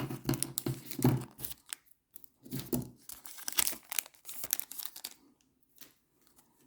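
Foil trading-card pack wrapper crinkling and tearing as it is pulled open by hand, a run of sharp crackles that dies down to a few faint ones about five seconds in.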